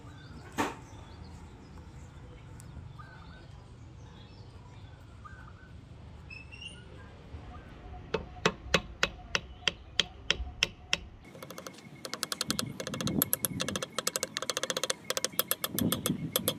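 Hammer tapping a wooden wedge into the eye of a hatchet head: evenly spaced sharp taps about three a second, turning to faster, denser tapping about three seconds later. Faint bird chirps come before the taps.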